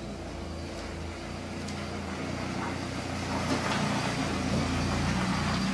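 Steady low mechanical hum, slowly growing louder, with a few faint ticks.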